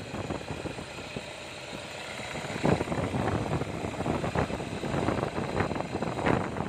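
2007 Toyota Innova's 2.5-litre common-rail diesel engine idling steadily. It starts and runs without trouble now that a replacement high-pressure fuel pump has been fitted.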